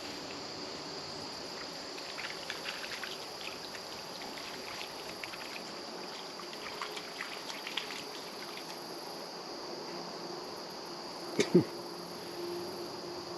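Insects droning steadily on one high pitch, with faint scattered clicks through the middle and two short, sharp sounds close together about eleven and a half seconds in.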